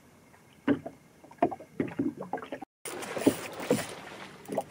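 Water lapping against the hull of a small boat at sea in a few short slaps, then, after a brief dropout, a steadier rush of wind and water.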